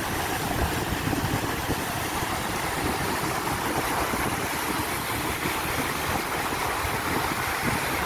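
River water rushing steadily over rock slabs, an even unbroken noise.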